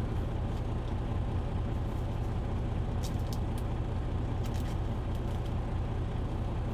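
Steady low rumble of an idling truck engine, with a few light clicks and rustles of trading cards being handled and slid into sleeves.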